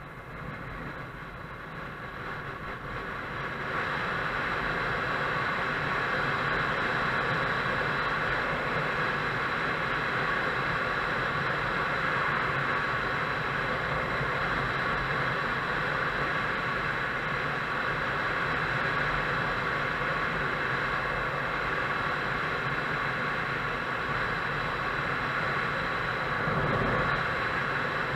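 Motorcycle riding along: the engine runs steadily under a rush of wind noise, growing louder about four seconds in and then holding even.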